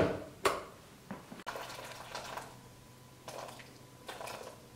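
A Breville electric kettle handled with a couple of short knocks in the first second and a half, then hot water poured from it into a glass bowl, a soft trickle and splash near the end. A faint low hum runs underneath from about a second and a half in.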